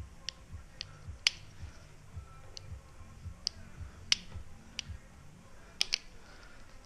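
Sharp, irregularly spaced clicks and snicks from a Stanley knife at work, about ten of them, with two loud clicks close together near the end.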